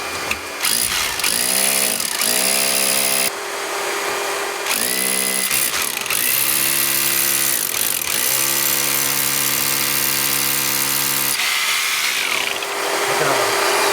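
Electric drill boring a flue-pipe hole through a wall, triggered on and off several times. The motor speeds up with a rising whine at each start; the longest run holds steady for about three seconds.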